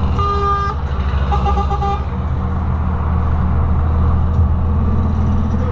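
A vehicle horn sounds a short toot, then about a second later a second, choppy toot, over the steady low drone of a truck's engine heard from inside the cab.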